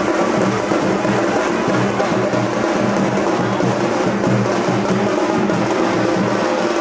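Loud music driven by drums and percussion, going on steadily.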